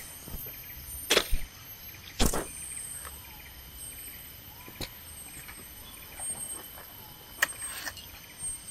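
Tropical forest ambience: insects keep up a steady high-pitched drone. A handful of sharp knocks or clunks sound over it, the loudest about one and two seconds in.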